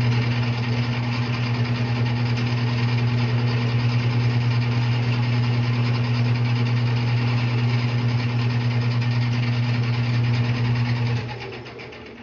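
Metal lathe running steadily with a strong, even hum, then switched off about eleven seconds in and winding down.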